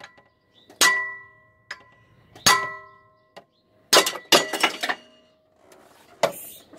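Hammer striking a wrench on a fan clutch's large nut, each blow a sharp metal clang that rings on briefly: single blows about a second in and near halfway, then a quick clatter of several hits, and a last knock near the end. The blows are tightening the fan clutch onto its shaft.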